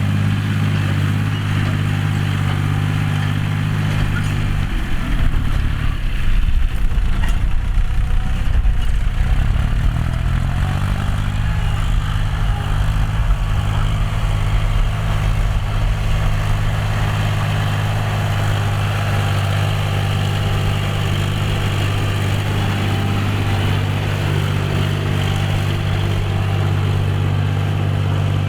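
John Deere 5045D tractor's three-cylinder diesel engine running steadily while ploughing. About five seconds in, its note drops and turns rougher and louder, then climbs back to a steady pitch by about twelve seconds.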